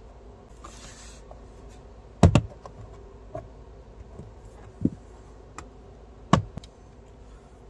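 Plastic retaining clips of a BYD Atto 3's lower dashboard trim cover popping loose under a plastic pry tool: a sharp snap about two seconds in, the loudest, then two more a few seconds apart, with quieter ticks and plastic handling between.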